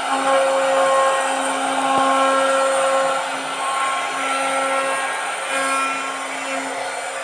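CNC router spindle whining steadily at one pitch while routing wood, with a higher hiss of cutting. The whine swells and fades as the bit works, loudest in the first few seconds.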